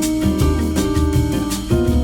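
Background music with held keyboard chords, a bass line and a steady beat.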